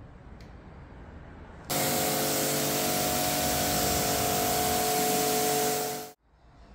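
A loud pressurized spray hiss with a steady machine hum under it, typical of car-wash spraying equipment. It starts suddenly just under two seconds in and cuts off abruptly about four seconds later.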